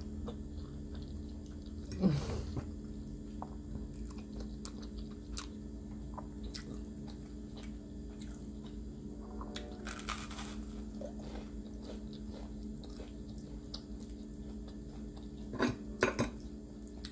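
Close-up mouth sounds of a person chewing spaghetti: wet clicks of chewing throughout, with a louder short sound about two seconds in, another around ten seconds and a few more near the end.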